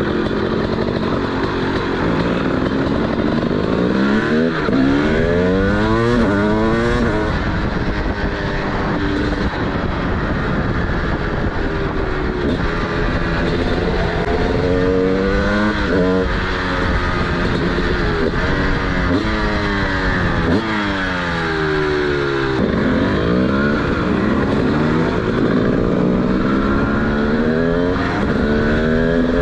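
Single-cylinder two-stroke engine of a TM SMR 300 supermoto with a DBR exhaust, under way and repeatedly revving up and shifting, its pitch climbing and dropping again several times.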